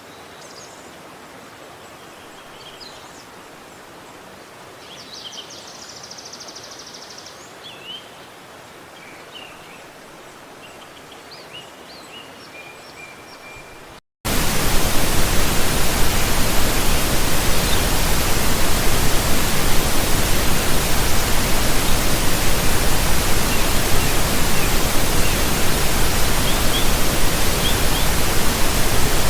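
Quiet outdoor ambience with small birds chirping, including a rapid trill about five seconds in. About halfway through, after a brief gap, it cuts abruptly to a loud, even rush of water, with a few faint chirps above it.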